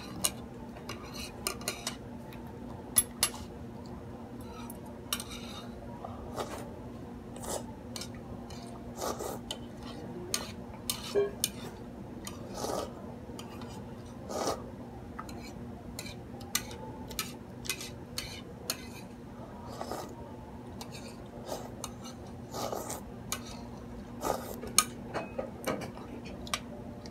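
Metal chopsticks clinking and scraping against a plate while eating noodles, in irregular sharp clicks throughout. A few softer, longer sounds come around the middle, when broth is sipped from the raised plate.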